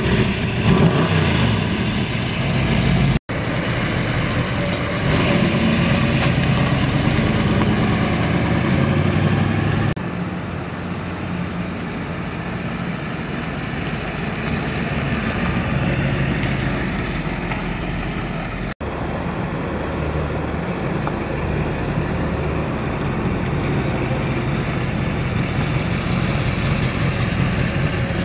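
440 cubic-inch Mopar big-block V8 running through high-performance exhaust manifolds and dual exhaust, idling and moving the car at low speed. It is louder for the first several seconds, and the sound drops out for an instant twice.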